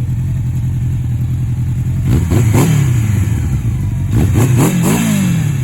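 1984 Honda Nighthawk CB700SC inline-four idling through its F1 exhaust, then blipped: a couple of quick revs about two seconds in, and another burst of revs near the end, the last dropping back to idle more slowly.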